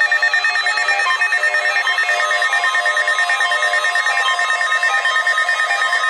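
Several NOAA weather radio receivers sounding their alert alarms at once for the weekly test: overlapping electronic beeps pulsing several times a second over steady tones.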